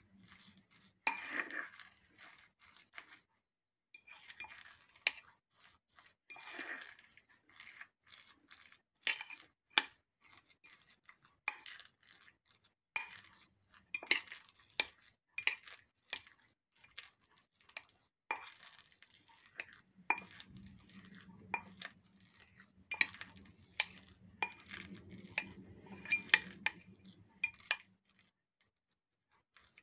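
A metal fork and then a spoon stirring thick sourdough in a glass bowl: irregular clinks and scrapes of metal on glass. A steady low hum runs under the clinks for several seconds near the end.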